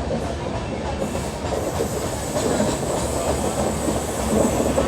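Indian Railways passenger train running along the track, a steady rumbling noise of the moving coaches that gets a little louder about halfway through.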